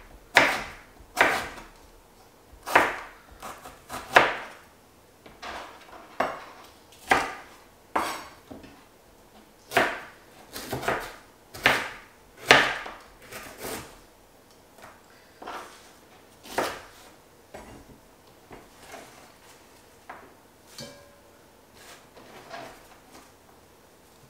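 Chef's knife cutting a pear on a cutting board: a series of irregular knocks as the blade strikes the board, roughly one a second, growing fainter and sparser in the last several seconds.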